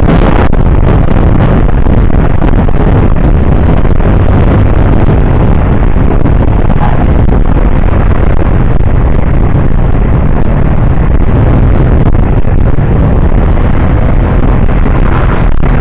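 Steady, loud rush of wind and road noise on a camera mounted on a moving motor scooter, with the scooter's engine running beneath it while cruising.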